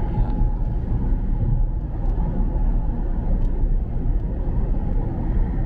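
Road noise inside a moving car's cabin: a steady low rumble of tyres and engine at motorway speed on a wet road.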